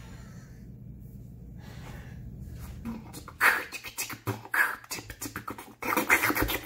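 A woman beatboxing: after a quiet start, a fast run of percussive mouth sounds, sharp clicks and snare-like hisses mixed with voiced drum sounds, begins about three seconds in.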